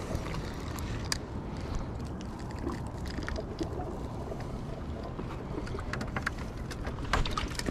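Steady low rumble of water and wind against the jetty rocks, with scattered light clicks and taps from a spinning rod and reel being handled as a herring is lifted out and the rod set down on the rocks; the taps cluster near the end.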